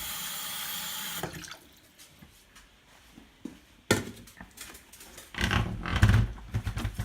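Kitchen tap running water into a container, shut off about a second in. A sharp click follows a few seconds later, then a short run of knocks and low thumps near the end.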